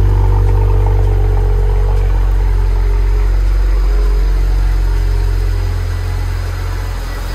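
BMW N54 twin-turbo 3.0-litre inline-six idling steadily just after start-up on fresh oil, heard from the exhaust; it gets a little quieter near the end.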